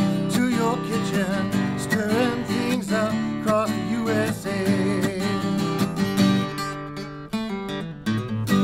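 A man singing to his own strummed acoustic guitar. The voice stops about six seconds in and the guitar carries on alone with a few strums, ending on one last full chord.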